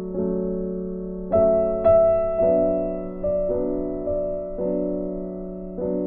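Slow, gentle background piano music: single notes struck over a held low chord, each fading away before the next.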